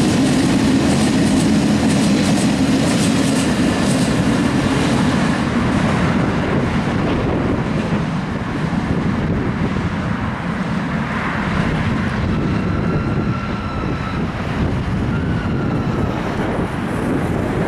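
Suburban commuter train passing close by, a rumbling rattle of wheels on track, loudest in the first few seconds and then easing as it moves off.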